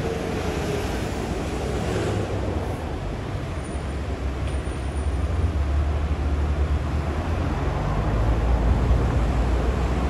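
Road traffic on a busy multi-lane street: a steady low rumble from the engines of cars, vans and light trucks, growing louder about five seconds in as the queued vehicles move off.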